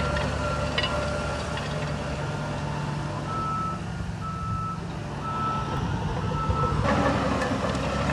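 Reversing alarm of a heavy construction machine beeping about once a second, one steady high tone, over its diesel engine running. The engine grows louder about seven seconds in.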